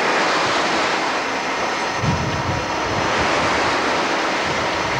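Steady rush of wind and sea noise, with low buffeting of wind on the microphone about two seconds in.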